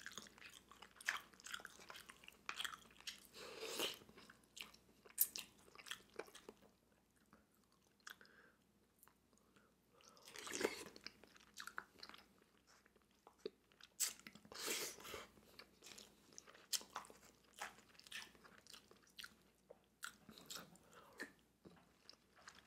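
A person chewing and eating: irregular soft mouth smacks and clicks, with a pause of a few seconds near the middle.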